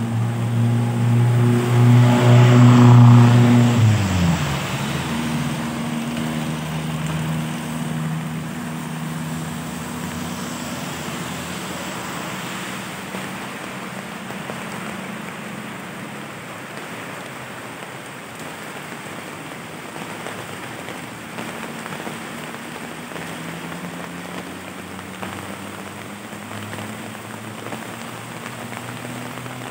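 Steady rain on a wet street, with a motor vehicle passing close on the wet road, its engine pitch dropping as it goes by about four seconds in. Fainter traffic follows, and another vehicle approaches near the end.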